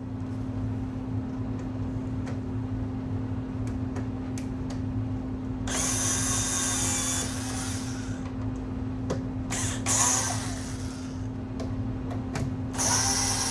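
Power drill running in three short bursts, each a second or so long, with scattered clicks and knocks between them and a steady low hum underneath.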